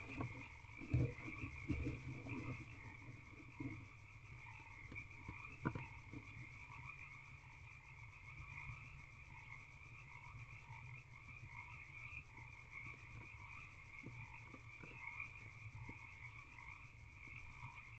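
A faint, steady chorus of frogs calling throughout. Over it, in the first few seconds, a barn owl scuffs and knocks as she shifts in the wood shavings of the nest box, with one more knock about six seconds in.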